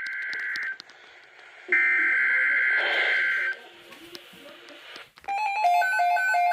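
Emergency Alert System SAME header data bursts, a harsh two-pitch digital screech: one burst ends within the first second and a second runs about two seconds. About five seconds in, a loud pulsing alert alarm starts, alternating between two tones several times a second, signalling the tornado watch that follows.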